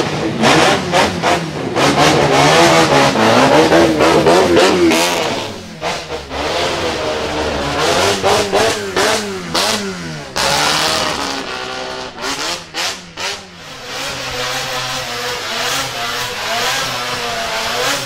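Twin-turbo four-rotor rotary engine in a Nissan Silvia S15 revving again and again, its pitch rising and falling, with sharp pops and crackles from the exhaust. Near the end it is held at high revs while the rear tyres spin in a burnout.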